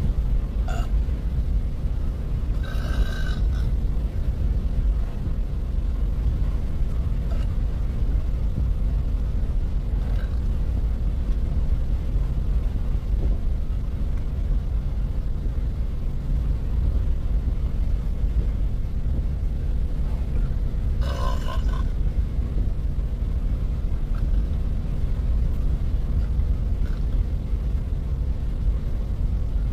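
A woman burping twice, briefly, about three seconds in and again about twenty-one seconds in, over a steady low rumble.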